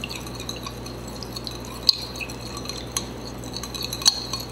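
A metal spoon stirring a runny mixture of melted oils and butters in a glass bowl: light scraping with scattered sharp clinks of metal against glass, the loudest about two seconds in and again near the end.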